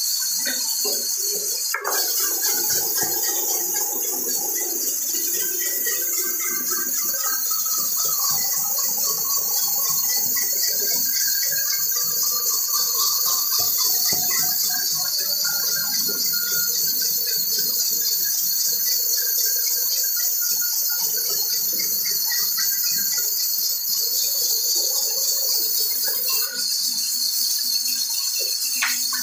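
Large wheel bandsaw running steadily while wood planks are fed through it, giving a constant high hiss. A sharp knock comes about two seconds in.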